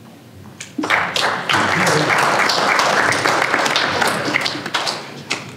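Audience applauding. The clapping breaks out about a second in, holds steady and loud, then fades near the end.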